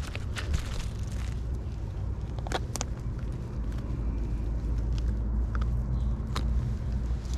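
Steady low rumble with a few sharp clicks and knocks scattered through it.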